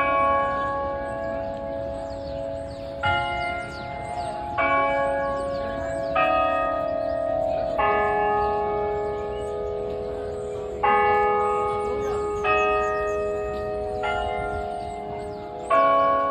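Delacorte Musical Clock's bells playing a slow tune, one struck note about every second and a half, each ringing on under the next, with one longer-held note midway.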